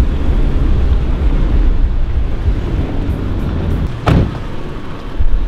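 Off-road vehicle driving over a rocky gravel trail: a steady low engine and road rumble with noise from the tyres on stones, and a single sharp knock about four seconds in.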